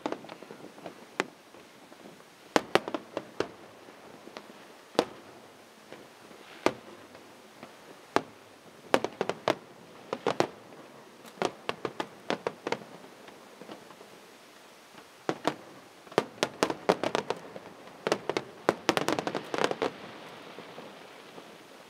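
Fireworks display: aerial shells bursting in sharp bangs and pops, scattered at first, then coming in rapid volleys in the second half.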